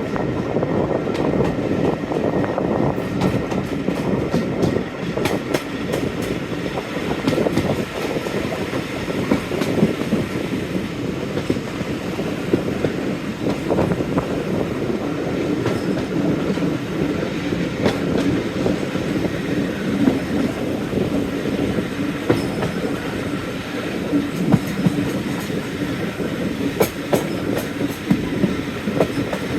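Train hauled by a Class 45 diesel locomotive running along the line: a steady rumble, with the wheels clicking over rail joints now and then.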